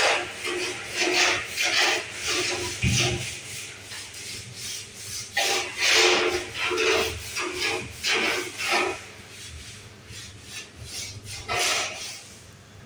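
Scrubbing a wet concrete floor by hand: repeated rubbing, scraping strokes, busiest in the first part and thinning out near the end.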